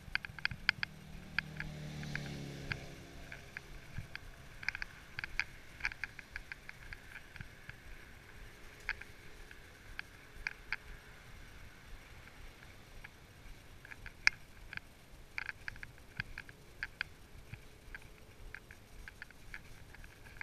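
Horse walking on a leaf-covered woodland trail: irregular crackles and clicks of hooves on dry leaves and twigs. A short low sound falls in pitch about two seconds in.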